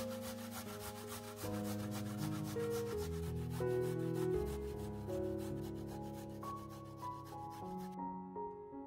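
Garlic clove being grated on a stainless-steel box grater: quick, even scraping strokes of the clove over the metal teeth, stopping about eight seconds in.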